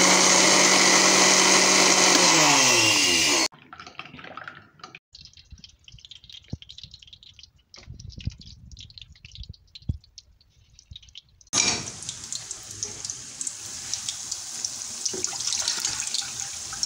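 Small electric blender jar grinding coriander and green chilli chutney, running steadily, then cutting off about three and a half seconds in. After it, soft crackling of pakora batter frying in hot oil, then a louder splashing as water is poured from a bottle into a pan.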